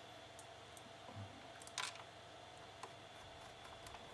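Faint, scattered small clicks and a brief scrape about two seconds in: a plastic TV stand foot being fitted and its screws handled and turned by hand with a screwdriver, over a faint steady hum.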